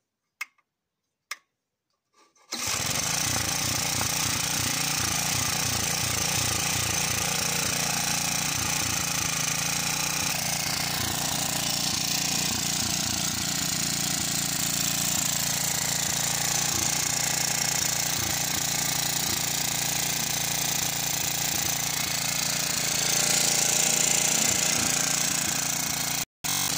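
Two short clicks, then about two and a half seconds in a small Honda four-stroke petrol engine on a cement mixer starts and runs steadily at speed. It is running with no load, its drive belt removed, and the governor hunting.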